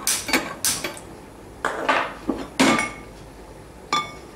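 Metal cookware clattering on a gas stove: about six sharp knocks and clinks. Near the end, a frying pan set down on the burner grate gives a ringing clank.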